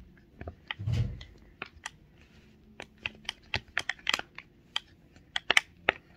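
Bubbles of a rainbow silicone pop-it fidget toy being pressed, popping in quick irregular clicks, with a soft thump about a second in.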